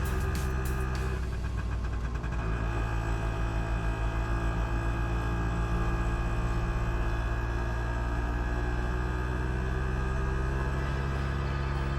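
Auto rickshaw's small engine running steadily as it drives along, a low drone that pulses in loudness for a few seconds after about two seconds in.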